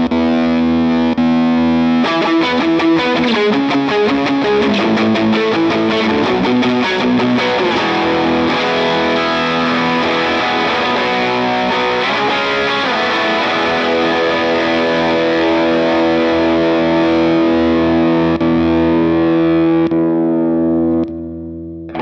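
Electric guitar played through a NUX Ace of Tone dual overdrive pedal with the overdrive engaged. A held chord gives way to about ten seconds of picked notes, then a long ringing chord. Near the end the sound thins and drops out briefly before a new chord is struck.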